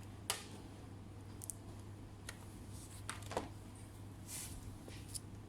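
A few scattered light clicks and taps, with a brief rustle, from small laptop parts being handled during repair work, over a steady low hum.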